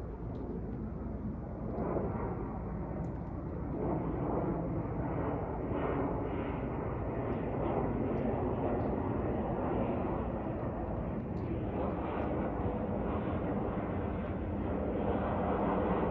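Twin-engine jet airliner flying high overhead: a steady low rumble of its engines that grows a little louder about four seconds in.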